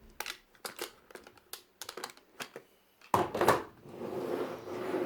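Plastic magnetic building tiles clicking and clacking as they are handled: a run of sharp separate clicks, a louder clatter about three seconds in, then rustling.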